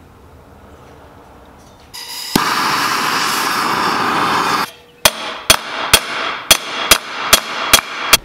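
A handheld gas torch hisses steadily for a couple of seconds, heating an exhaust header pipe. Then a hammer strikes the pipe about eight times, a little over two blows a second, each with a short metallic ring, denting the pipe to gain clearance.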